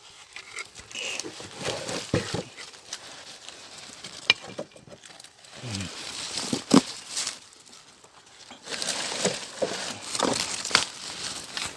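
Dry leaf litter and twigs rustling and crackling underfoot and under hand, with scattered sharp knocks, as someone moves about and handles a wooden box trap.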